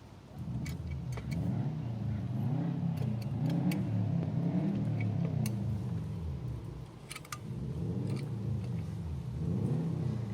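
Rear drum brake on a Suzuki Grand Vitara squeaking: a low, pitched groan that rises and falls over and over, about once a second, with a few light clicks. It stops briefly about two-thirds of the way through, then resumes.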